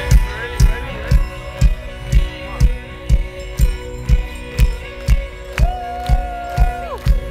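Live synth-pop band music played through a festival PA: a steady kick drum at about two beats a second under held synth chords. Near the end a single long high note holds for over a second, then falls away.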